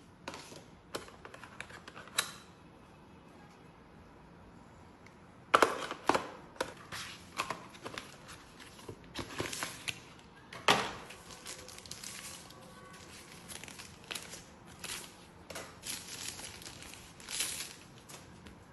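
Smartphone box and packaging being handled, a run of irregular clicks, taps and crinkles. There is a quiet gap from about two to five seconds in, then busier handling with a couple of sharper knocks.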